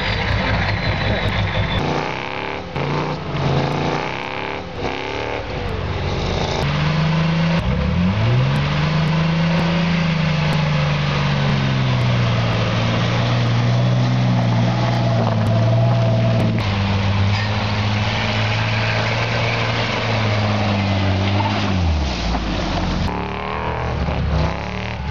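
A vehicle's motor sweeps up in pitch about eight seconds in, runs steadily under load for around fourteen seconds, then winds down. Before it there is rough engine noise with scattered knocks.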